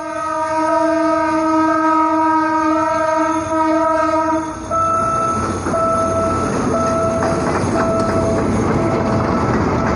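A train sounds a long horn of several tones held for about four and a half seconds, then runs past with a heavy rumble and rail clatter while a beeping tone repeats about once a second.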